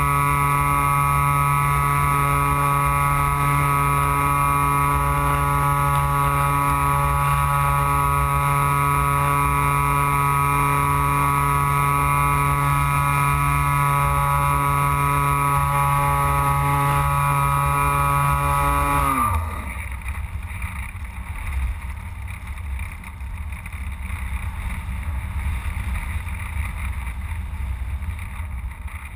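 The Carl Goldberg Electra sailplane's electric motor and propeller run with a steady drone. About 19 seconds in, the motor is cut: the drone winds down quickly in pitch and stops. Only wind rushing over the airframe and microphone is left as the sailplane glides.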